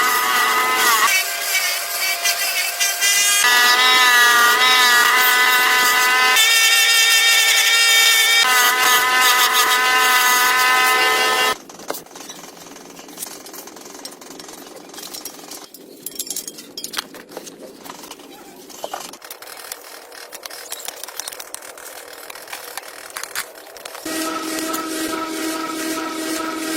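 Power tools running in a string of short cut-together clips: loud steady motor whines whose pitch jumps every few seconds. About halfway through this gives way to quieter scraping and light knocks, and another lower motor whine comes in near the end.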